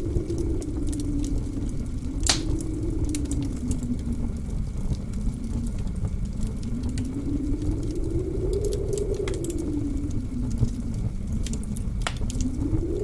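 Wood fire crackling with scattered sharp pops, one loud pop about two seconds in, over blizzard wind that rumbles low and howls in a slow rising and falling tone.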